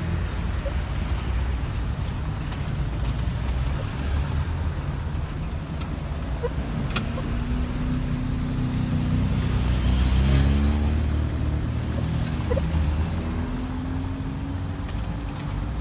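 Cars and a van driving past close by over a level crossing: steady engine and tyre rumble, with an engine note falling and then rising again in the second half as vehicles pass.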